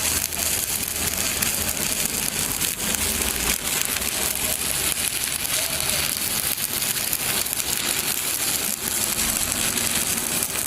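Stick-welding (SMAW) arc crackling steadily as the electrode burns along a plate joint, a continuous dense sizzle of fine pops.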